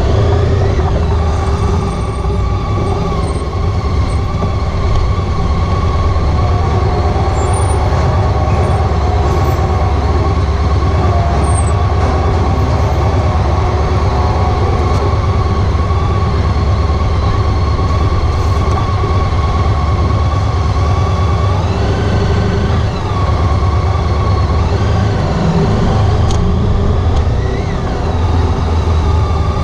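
Honda ST1300 Pan European motorcycle's V4 engine running under way, a steady low rumble with road noise. A few brief rises and falls in pitch come in the last several seconds.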